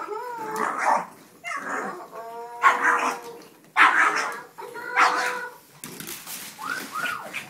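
Pug barking and whining in a series of yappy calls, about one a second, some short and some drawn out at a steady pitch.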